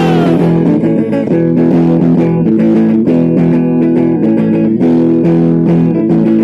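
Electric guitar played live through stage amplifiers in an instrumental break of a rock song, a run of held, changing notes with no singing.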